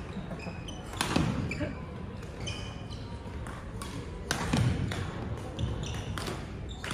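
Badminton hall with play going on: sharp knocks from rackets striking shuttlecocks and players' feet landing, loudest about a second in and again past the middle, with short high squeaks of court shoes on the floor and faint voices in the background.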